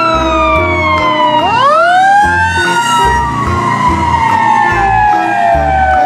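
Fire engine siren wailing. Its pitch falls, climbs sharply about a second and a half in, then winds slowly down.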